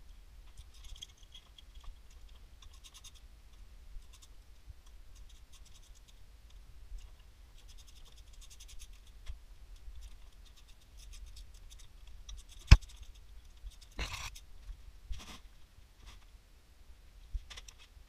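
Hand ratchet clicking in short runs as oil pan bolts are backed out. About two-thirds of the way through there is one sharp loud click, followed a moment later by a short metallic clatter.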